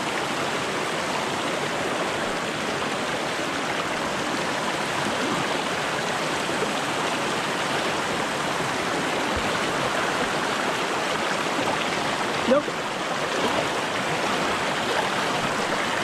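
Shallow mountain creek rushing and burbling over rocks, a steady close-up water noise. One short, sharp noise stands out about twelve seconds in.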